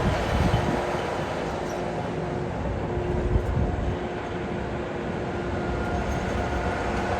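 Heavy diesel machinery running steadily: a constant low engine noise with a few faint steady tones over it.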